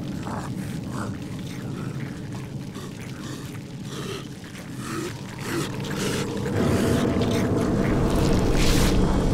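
Low rumbling drone of a horror film's sound design, swelling louder about two-thirds of the way through, with faint scattered rustles over it.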